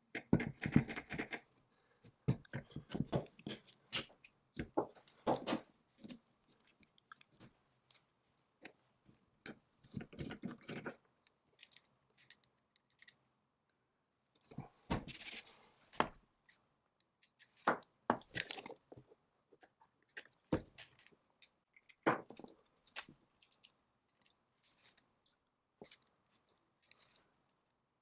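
Metal handling sounds as locking pliers twist the brass cylinder of an early-1910s Hypress blower off its cast-iron pump body, followed by clicks and clinks as the loose brass cylinder and plunger are handled, in scattered short bursts with pauses between.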